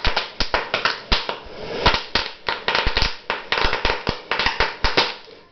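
Gas bubbles from a stainless-steel-wool electrolysis cell popping as a torch flame lights them at the surface of a bucket of water: a rapid, irregular string of sharp pops and cracks, several a second.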